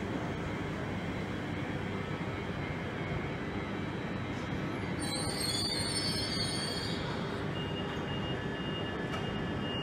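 Francilien (Z50000) electric multiple unit rolling slowly into a platform and braking to a stop, with steady running noise and a high squeal from the train for about two seconds midway.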